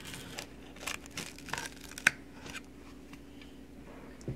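A freshly baked pizza being cut and handled on its pan: light crinkling and scraping with scattered small clicks, and one sharp click about two seconds in.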